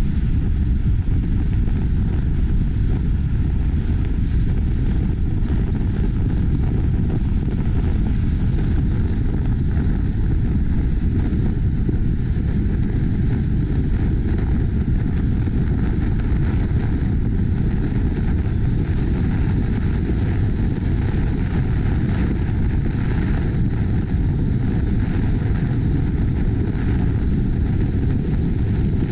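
Steady low rumble of a car driving at speed, with wind buffeting the microphone over the tyre and road noise.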